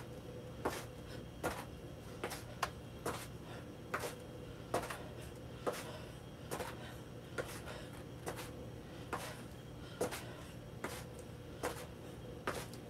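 Light knocks in a steady rhythm, a little more often than once a second, from knee-up reps. A steady low hum runs underneath.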